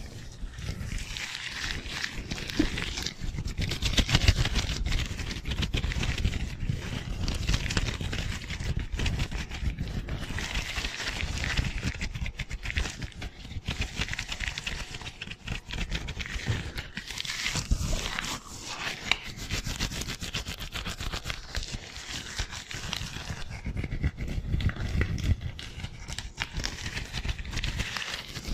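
Gloved hands rubbing and scrunching fast and hard close to a microphone: a continuous crackling, scraping rustle that rises and falls with the hand strokes, with a low rumble underneath.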